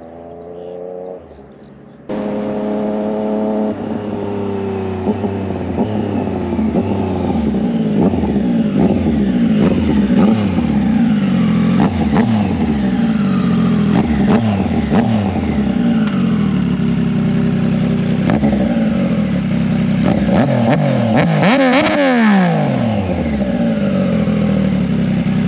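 Triumph Street Triple 765 RS inline three-cylinder engine through an SC Project full titanium exhaust, standing and blipped over and over: each rev rises and drops back to a steady idle. The biggest rev comes about 22 seconds in, and it settles to idle near the end. A passing run of the bike is heard briefly at the start and cuts off about two seconds in.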